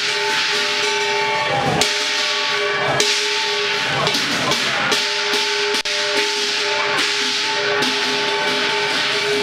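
Chinese lion dance music: a shrill wind instrument holds long notes, bending in pitch now and then, over a continuous wash of clashing cymbals with occasional sharp percussion strikes.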